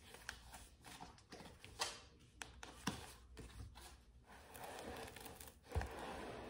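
Plastic wrapping being handled and pulled off a rolled package: scattered taps and knocks, then crinkling and rustling of the plastic from about two-thirds of the way in, with one thump near the end.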